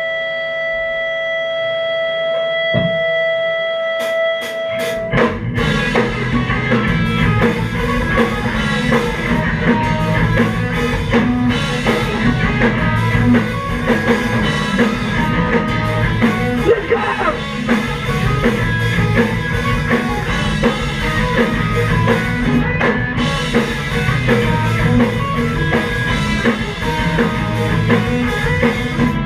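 A live emo/math-rock band of electric guitars and drum kit playing. It opens with a few seconds of steady held tones; after a few sharp hits about five seconds in, the full band comes in with drums and guitars.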